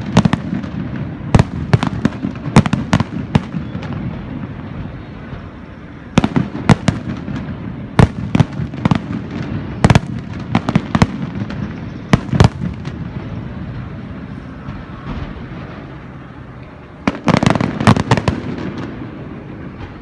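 Aerial fireworks shells bursting in irregular volleys of sharp booms, with rumbling echoes in between. A rapid cluster of bursts comes near the end.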